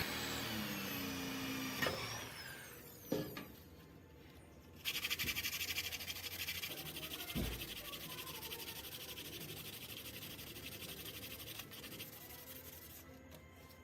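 Brass guard being sanded with abrasive: a fast, even rasping that starts suddenly about five seconds in and slowly fades, after a couple of sharp knocks.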